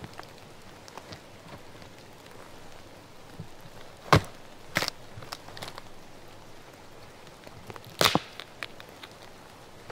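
Hatchet chopping into an old dead tree stump: a few sharp chops, the loudest about four seconds in and again about eight seconds in, with lighter blows between, over a steady patter of rain.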